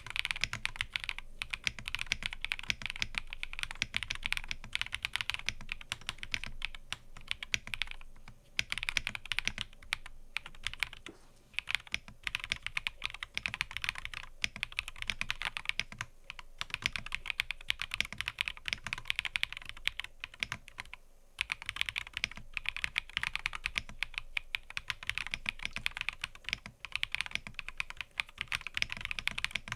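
Fast, continuous typing on a mechanical keyboard, many keystrokes a second, with a few brief pauses.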